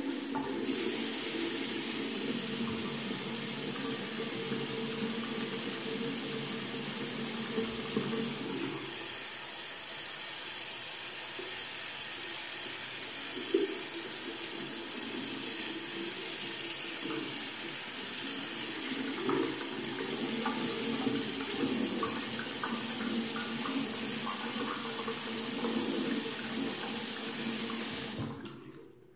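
Bathroom sink faucet running, water streaming into a ceramic basin and over a washcloth held under it; the sound changes about nine seconds in and turns more uneven later on, then the water is shut off near the end.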